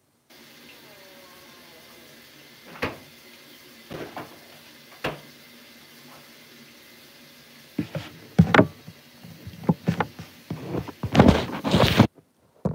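Handling noise from a phone: a few separate knocks, then from about two-thirds of the way in a dense run of loud bumps and rubbing as it is picked up, over a faint steady hum.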